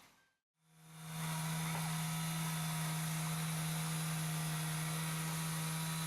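Vibrating concrete screed running steadily with an even, low-pitched motor hum as it settles freshly poured concrete. The hum fades in about a second in, after a brief silence.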